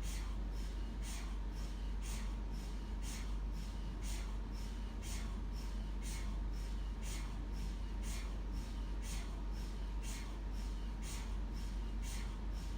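MRI scanner running a scan sequence: regular pulses of noise about two a second over a steady low hum and a faint steady tone.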